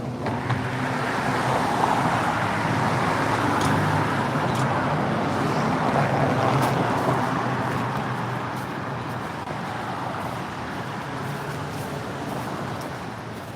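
A motor vehicle passing by: road and engine noise swells over the first couple of seconds, holds, then fades slowly, over a steady low engine hum.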